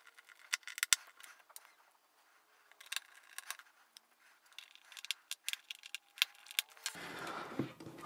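Scattered sharp clicks, taps and light scrapes of small screws and fingers handled on the bottom cover of a Panasonic Toughbook CF-31 laptop as the memory cover is screwed back on.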